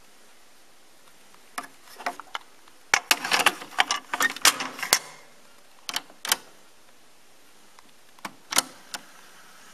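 Plastic clicks and clacks of a cassette being handled and seated in the tape well of a Fisher CD-4020 cassette deck, with a quick run of sharp clacks in the middle. Near the end come a few mechanical clicks as the deck's piano-key Play button is pushed down.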